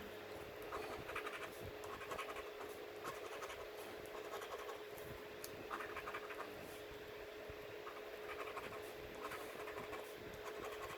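Scratching the coating off a scratch-off lottery ticket: faint bouts of raspy strokes every second or two, over a steady faint hum.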